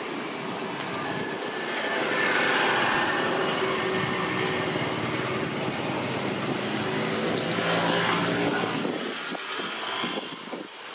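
Steady drone of a motor engine with a low hum. It grows louder about two seconds in, swells again near eight seconds, then fades near the end.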